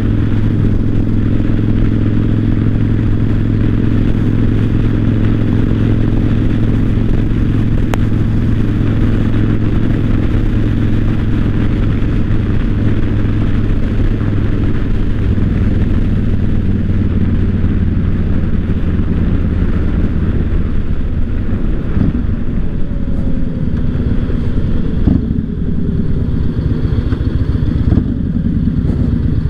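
2008 Yamaha Raider's 1,854 cc air-cooled V-twin running steadily on the road, with wind noise over the microphone. About twenty seconds in, the engine note changes and becomes less even, and a few sharp clicks follow near the end.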